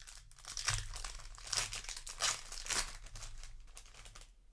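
Crinkling of a Magic: The Gathering booster pack's plastic-foil wrapper being handled, a run of rustles that thins out over the last second or so.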